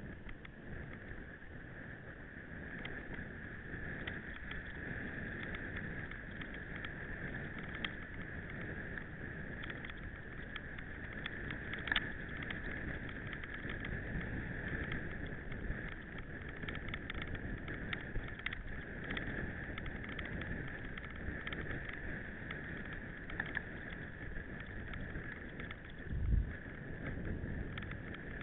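Mountain bike being ridden on a trail: a steady rolling rattle, with scattered ticks and knocks. There is a sharper knock about 12 seconds in and a low thump a couple of seconds before the end.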